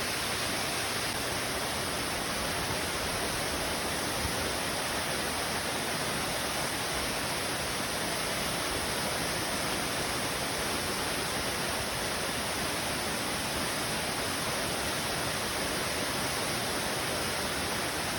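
Waterfall: water pouring down steadily into a forest stream, an even unbroken rush.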